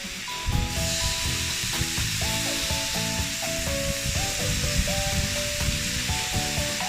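Samgyeopsal pork belly sizzling on a grill, an even hiss, under background music with a melody and a beat.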